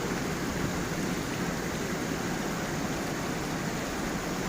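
A small waterfall and stream flowing: a steady, unbroken rush of water.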